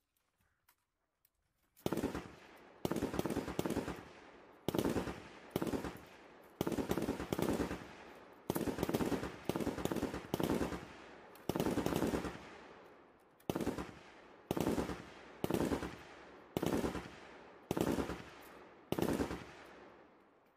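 M240B 7.62 mm machine gun firing a long string of short bursts, about one a second, starting about two seconds in. Each burst trails off in an echo.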